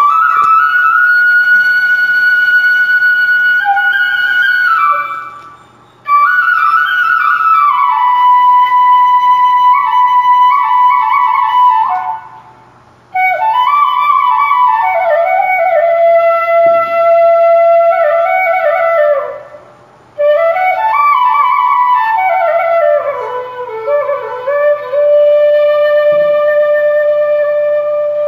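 Background music: a solo flute playing four slow phrases of long held notes. The phrases mostly fall in pitch, with short pauses between them.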